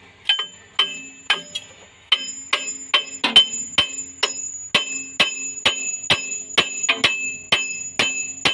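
Metal hand tool working on the bolts of a truck's driveshaft hanger bearing, giving sharp metallic clicks or taps about two to two and a half times a second, each with a short bright ring. A thin high ring holds from about two seconds in.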